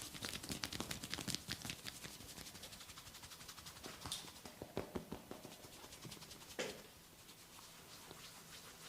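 Hands patting and rubbing on skin during a massage: a quick run of light slaps and clicks that thins out after a couple of seconds, with one louder slap about six and a half seconds in.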